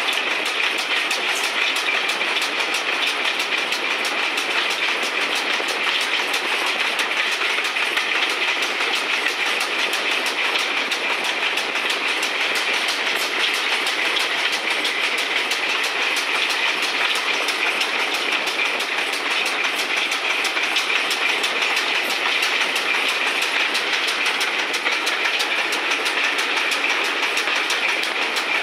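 Steam train hauled by GWR 1366-class pannier tank 1369, running along the line and heard from just behind the engine: a steady rush of wheels on rail with fast, regular clicking.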